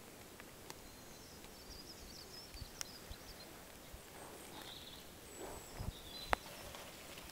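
A cat chewing and crunching a field mouse: scattered faint crunches and clicks, with one sharper crack about six seconds in.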